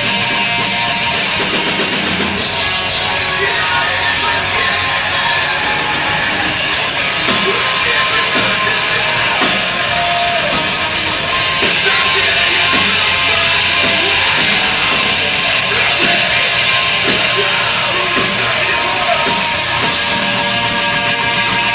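Live rock band playing loud distorted electric guitars with bass and drums, with some shouted vocals.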